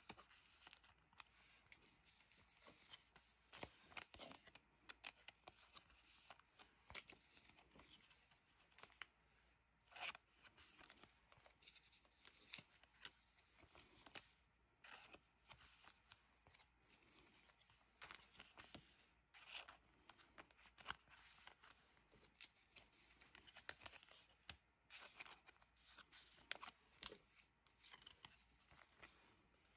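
Clear plastic card sleeves crinkling and rustling as Pokémon trading cards are slid into them one after another, with light clicks and taps of card stock. The sounds are quiet and come in short, frequent bursts of rustle.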